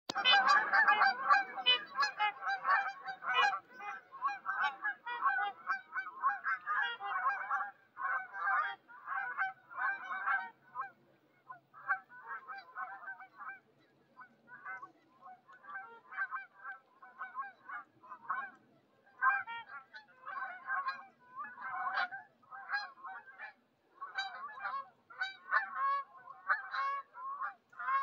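A flock of Canada geese honking as it takes off and flies away: many overlapping honks, densest and loudest in the first few seconds, then going on in ragged bursts.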